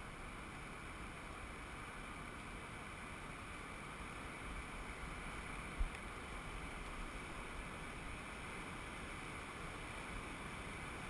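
Steady rushing of the Lava Falls whitewater on the Colorado River, heard from a raft drifting toward the rapid, with one dull knock about halfway through.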